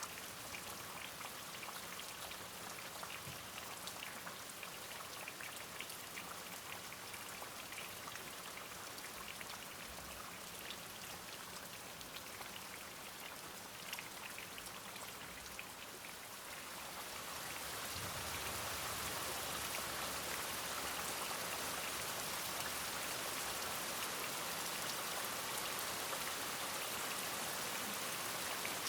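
Steady rain with scattered individual drops pattering, growing heavier and louder a little over halfway through.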